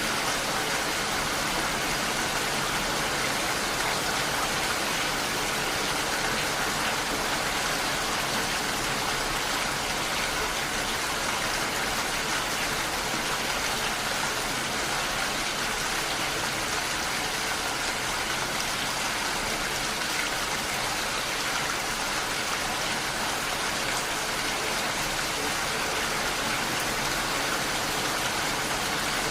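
Heavy rain falling steadily, an even hiss of countless drops with no breaks or separate sounds.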